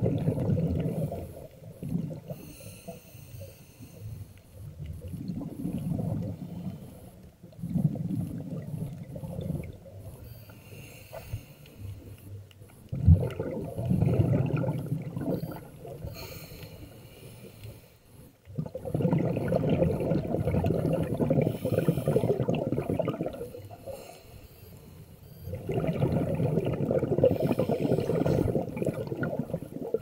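Scuba diver breathing through a regulator underwater: rhythmic breaths every few seconds, with hissing and bubbling exhalations, the longest lasting about four seconds.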